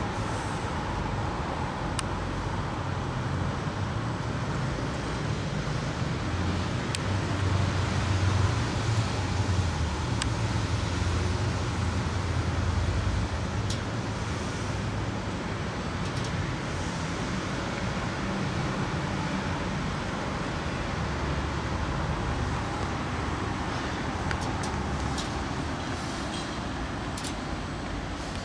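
Steady low rumble of distant road traffic, swelling louder for several seconds about a quarter of the way in, with a few faint clicks.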